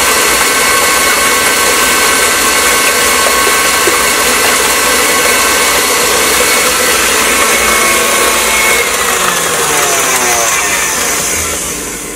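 KitchenAid stand mixer's motor running steadily with a whine as its flat beater creams cream-cheese cheesecake batter. Near the end it is switched off and winds down, its whine falling in pitch.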